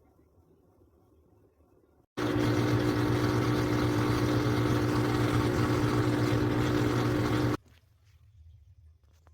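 A steady electric motor hum with a loud rushing hiss. It starts suddenly about two seconds in and cuts off abruptly about five seconds later.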